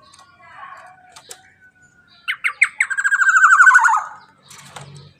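Black-naped oriole (kepodang emas) calling: a few faint chirps, then three or four sharp notes about two seconds in, followed by a loud, rapidly pulsed harsh call of over a second that drops slightly in pitch.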